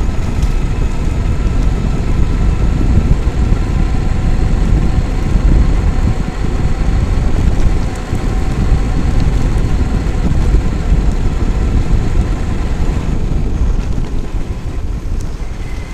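Traxxas X-Maxx RC monster truck driving, heard from its onboard camera: a heavy, loud rumble of wind and tyre vibration with a faint steady whine from its brushless electric motor and drivetrain, easing off near the end.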